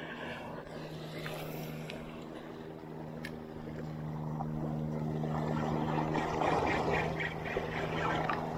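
A steady low motor-like hum over small sea waves washing in the shallows and against the rocks. The hum fades out about six and a half seconds in, and a few light clicks follow near the end.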